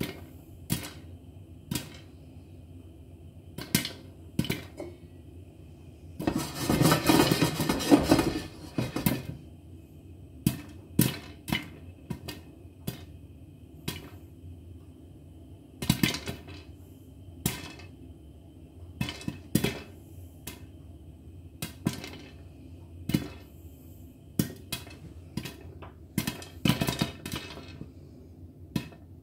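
Popcorn kernels popping in a covered pan, the pops knocking against the glass lid: sharp single pops at irregular intervals. About six seconds in comes a denser, louder run of pops lasting about three seconds.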